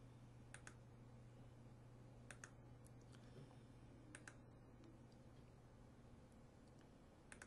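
Faint computer mouse clicks, mostly in quick pairs, about four times, over a low steady hum.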